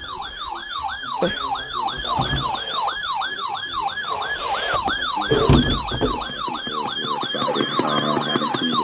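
Electronic siren on a fast yelp: a rapidly repeating falling wail, about three to four sweeps a second, steady in loudness, with a brief low rumble about five and a half seconds in.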